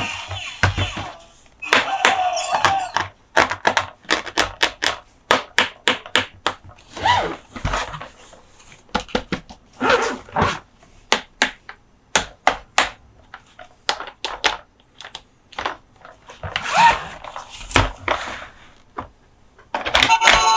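Hands tapping and handling diecast toy monster trucks and their plastic packaging: a quick, irregular run of sharp clicks and taps, broken by a few short scraping, rustling passages.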